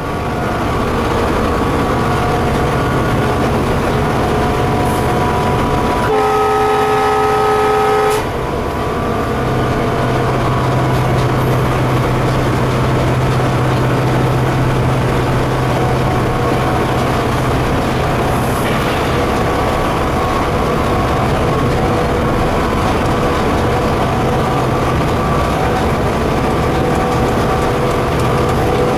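Cab noise of an EMD WDG4D diesel-electric locomotive running at about 100 km/h: its two-stroke V16 diesel engine drones steadily over wheel and track noise. About six seconds in the horn sounds once, a chord of steady notes held for about two seconds.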